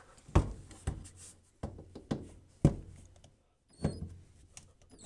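Scattered sharp knocks and thunks, about six, from the drill and hands bumping against an over-the-range microwave and the cabinet above it while its mounting screws are taken out, with a brief faint squeak about four seconds in.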